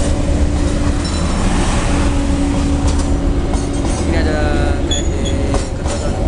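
Passenger train coaches rolling past close by: a steady low rumble of steel wheels on the rails, with a few short high-pitched wheel squeals near the end.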